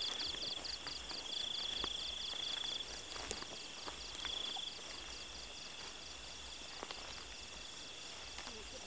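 Night insects calling in a field: a rapid high pulsed chirping, about five pulses a second, that fades out about three seconds in, and a steady high trill heard in three stretches, with a few faint clicks and rustles.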